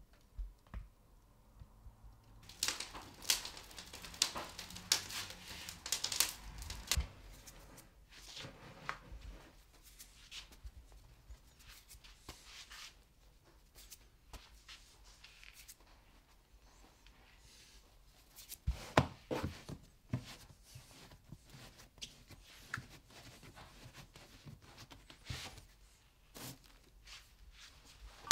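Irregular light knocks, taps and rustles from flour-dusted wicker proofing baskets and dough being handled, in two busy spells with quieter handling between.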